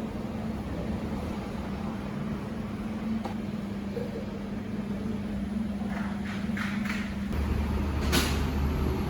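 A steady low hum of workshop background, with a few sharp metal clinks and some scraping of engine parts being handled during disassembly. A low rumble rises near the end.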